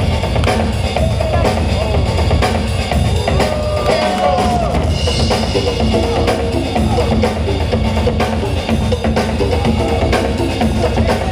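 DJ music with a heavy drum-kit beat and strong bass, played loud over a sound system.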